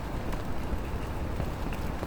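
Steady riverside ambience in light rain: an even rushing hiss of water and rain over a low rumble, with a few faint ticks of drops.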